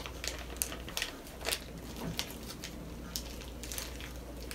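Thin clear plastic wrapper being handled around a slime ball, giving irregular crinkles and crackles over a faint low hum.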